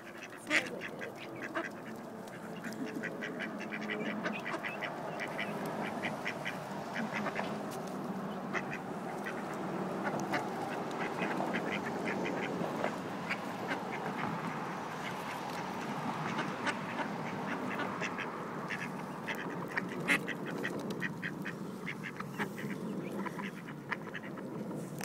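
A flock of ducks and ducklings feeding on bread crumbs: a continuous chatter of soft quacks, with many quick clicks of bills pecking crumbs off the pavement.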